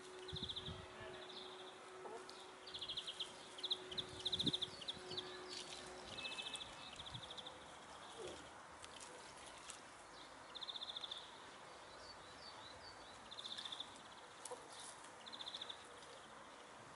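A small songbird sings short trills that repeat every second or two, over scattered clicks and scuffs of hens scratching and pecking in loose soil. A faint steady low hum runs through the first six seconds.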